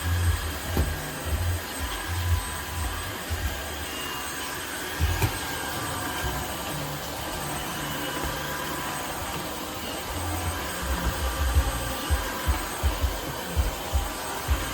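Tineco Floor ONE S5 cordless wet-dry vacuum running: a steady whir with a few thin steady tones, and irregular low thumps throughout.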